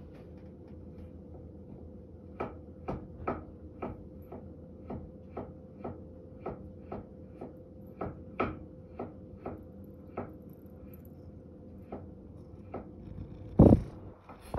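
Kitchen knife chopping carrot on a cutting board: sharp, even knocks about twice a second, with a faint steady hum underneath. The chopping stops a little before the end, followed by a single loud thump.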